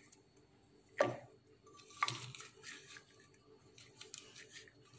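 Silicone spatula stirring sticky sauce-coated popcorn in a metal pressure cooker: two sharp scrapes or knocks against the pot about one and two seconds in, with light rustling of the popcorn between and after.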